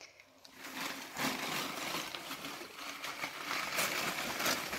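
Crumpled newspaper packing rustling and crackling as it is pulled by hand out of a cardboard box, starting about a second in.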